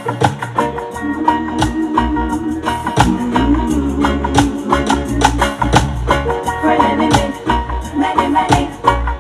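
Loud music with heavy bass and a steady beat of sharp percussion hits, with a melodic line running over it.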